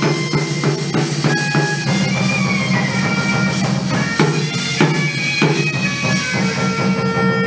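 Live hát văn (chầu văn) ritual music: drum and percussion strikes beat steadily under a sustained, gliding melodic line.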